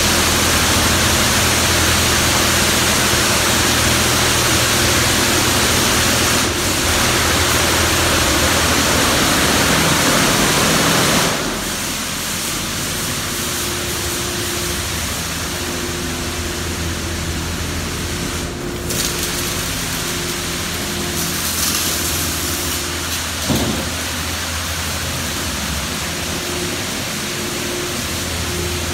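D&S Super 5000 in-bay automatic car wash spraying water over a car: a steady hiss of spray over the steady hum of the machine's motors. The spray gets quieter about eleven seconds in, while the hum carries on.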